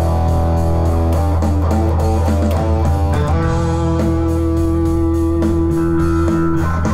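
Les Paul-style electric guitar, played through an amp-simulator plugin, playing a rock riff over a steady bass line. One guitar note is held for about three seconds in the second half.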